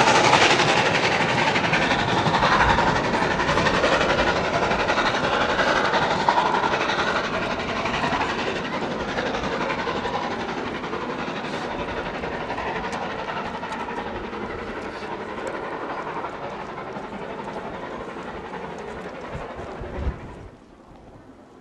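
Harzer Schmalspurbahnen narrow-gauge steam train pulling away, its coaches rattling and clacking over the rails, the sound fading steadily as it recedes until it cuts off near the end.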